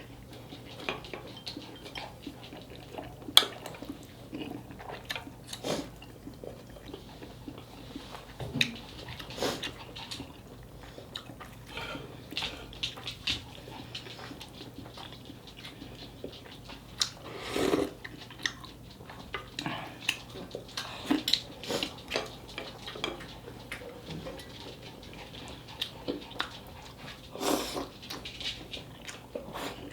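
Close-miked eating of cheesy dakgalbi: chewing and biting, with scattered irregular clicks of utensils against the dish. A couple of longer, louder noises stand out, about halfway through and near the end, over a faint steady low hum.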